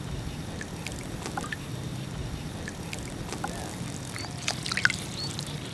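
Reservoir water at a wading angler: scattered small splashes and drips over a steady low rumble, with a few short high chirps in the second half.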